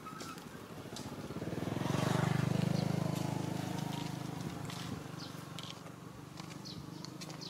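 A motor vehicle's engine passing by: a low hum that grows louder to a peak about two seconds in, then fades away, with faint scattered clicks.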